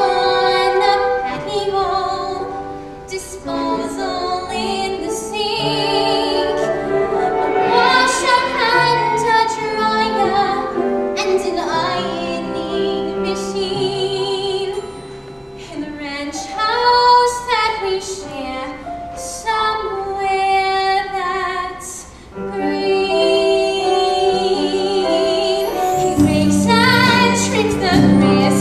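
A young woman sings a musical-theatre solo ballad over instrumental accompaniment, with a wavering vibrato on her held notes. Near the end the accompaniment swells with fuller low notes.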